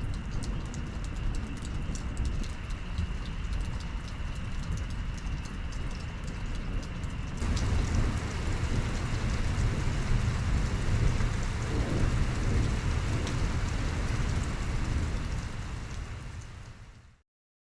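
Rain falling during a thunderstorm, with a steady low rumble underneath. About seven seconds in the sound shifts to a denser, louder rush, then it fades out shortly before the end.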